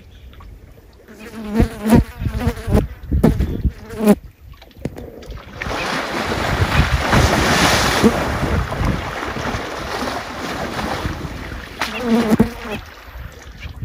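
African bull elephant thrashing its trunk in shallow river water: a few separate slaps and sloshes, then several seconds of heavy continuous splashing, loudest near the middle, before it settles back to scattered splashes.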